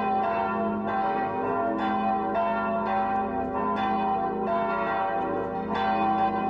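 A peal of church bells: several bells strike one after another, roughly twice a second, each note ringing on under the next. This is the Western manner of ringing with swinging bells.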